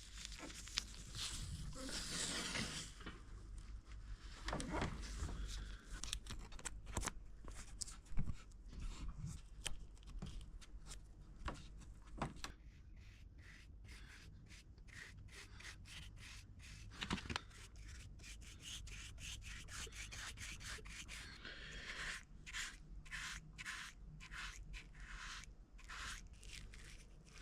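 Quiet rubbing and brushing strokes on wood with scattered small clicks and taps: hand work on a mahogany dresser's edges, taping them off and brushing on black stain. The strokes come a few times a second near the end.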